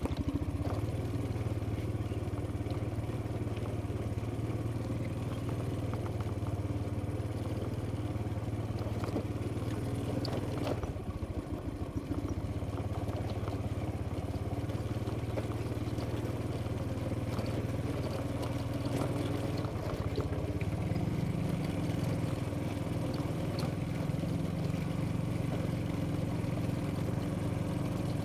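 Small motor scooter engine running steadily while riding over a rough stone track. It dips briefly about eleven seconds in and rises slightly in pitch about twenty seconds in.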